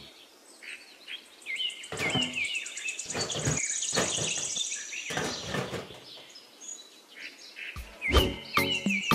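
Birds chirping and a high insect trill over outdoor ambience, with a few short knocks from handling a plastic tray and miniature parts.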